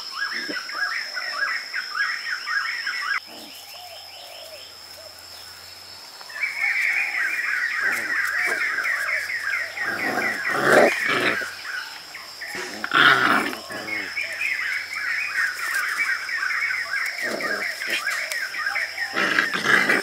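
Insects chirring steadily, with a puppy's short whines and yelps breaking in several times. The chirring drops out for a few seconds about three seconds in.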